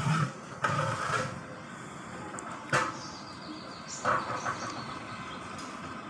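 Long-handled metal ladle scraping and knocking against the inside of a large metal cooking pot as thick khichuri is stirred, with a single sharp clank near the middle.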